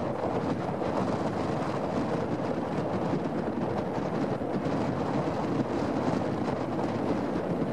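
Strong wind buffeting the microphone: a steady, loud rushing noise without a break.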